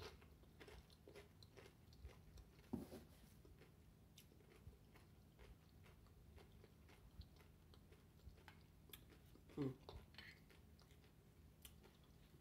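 Faint close-up chewing of a mouthful of nachos, tortilla chips with toppings, heard as soft scattered crunches and small mouth clicks, with two slightly louder moments about three seconds in and near ten seconds.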